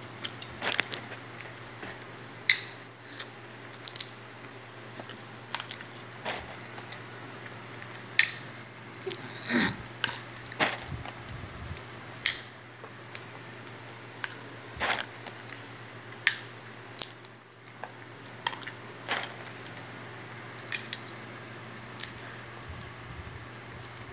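Sharp clicks and taps on a plate as a small child picks food from it with his fingers, coming at irregular intervals about one every second or two, over a steady low hum.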